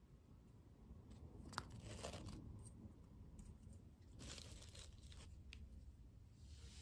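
Faint tearing and crinkling of candy packaging in three short bursts, with a sharp click about one and a half seconds in.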